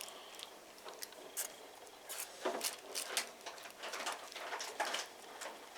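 Irregular soft taps and clicks of marinated meat being laid into a baking dish around potato wedges.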